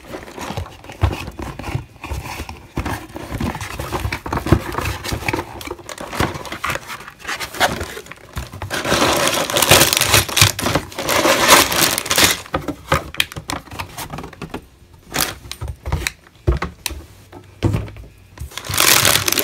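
A cardboard Lego box being opened, then clear plastic bags full of Lego bricks crinkling and rustling as they are handled, with small clicks and rattles of the pieces inside. The crinkling is loudest about halfway through and quieter near the end.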